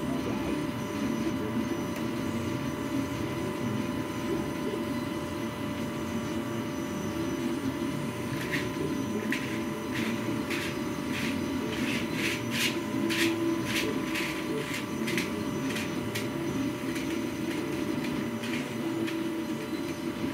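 CME Hexagon-2 plastic twisty puzzle being turned by hand: a run of sharp clicks of its layers snapping into place, starting about eight seconds in and ending shortly before the end, at about two a second, over a steady low rumble and hum that runs throughout.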